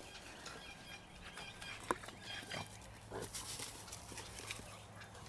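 Dogs playing, making short animal sounds, with a single sharp click about two seconds in.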